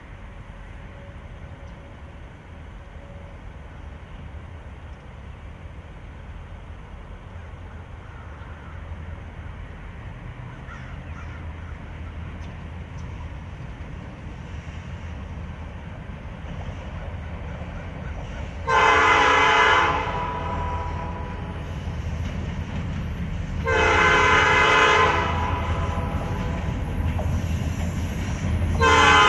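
Two Norfolk Southern EMD SD40-2 diesel locomotives approaching, the low rumble of their engines growing steadily louder. About two-thirds of the way in, the lead unit's air horn sounds a chord in two long blasts, and a third blast begins near the end.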